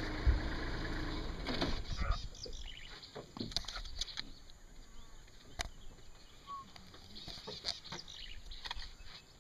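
Sparse rustling and snapping of twigs as an African elephant browses in a bush, quiet scattered crackles. A low rumble fades out over the first two seconds.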